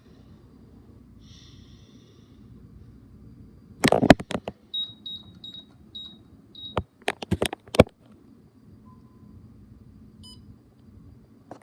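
ADT Pulse alarm system keypad giving a quick run of five short, high beeps, between loud clicks and knocks as it is handled and pressed.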